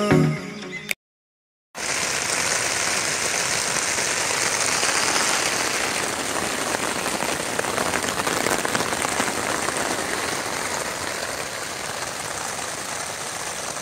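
Heavy downpour: a steady, dense hiss of rain that starts about two seconds in after a brief snatch of music cuts off, easing slightly near the end.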